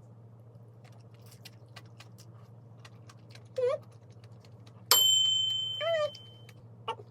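A cat meows twice, a few seconds apart. Between the meows, a single sharp metal clink, the loudest sound, rings on for over a second.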